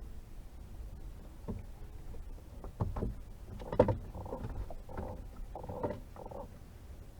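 Knocks and thumps on a boat, a few scattered at first, the loudest about four seconds in, then a quick run of softer knocks, as a just-weighed catfish and gear are handled aboard.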